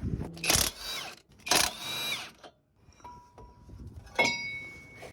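Power tool running in two or three short bursts, then a sharp metallic strike about four seconds in that rings on with a steady high tone.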